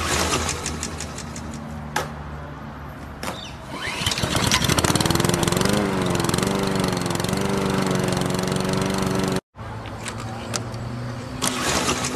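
Petrol lawnmower sound: sharp pull-cord yanks, then the engine spins up and catches about four seconds in, running steadily with a wavering pitch. It cuts off abruptly near the end and the starting sound begins again.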